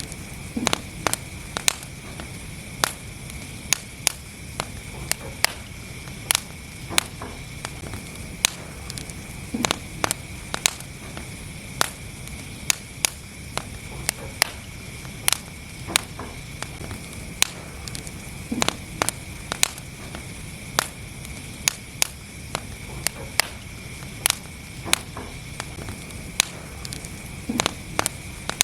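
Wood fire burning in a fireplace: a steady low rumble and hiss with frequent sharp crackles and pops, irregular, often one to three a second.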